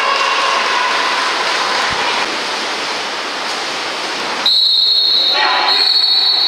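Referee's whistle: two shrill blasts close together near the end, the second longer, over a steady background of voices and noise.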